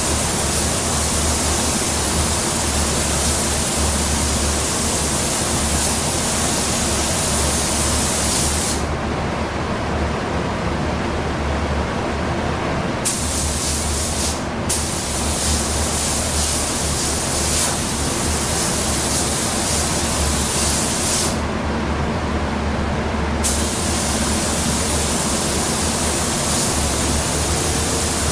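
Gravity-feed spray gun hissing as it sprays clear coat over a car fender in long passes. The hiss cuts off abruptly as the trigger is released: for about four seconds starting about nine seconds in, for a moment a few seconds later, and for about two seconds near the three-quarter mark. A low steady hum runs underneath.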